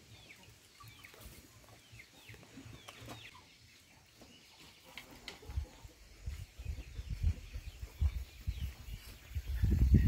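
Birds chirping in short falling calls, many in the first few seconds. From about halfway, irregular low thuds and rumble take over, loudest just before the end.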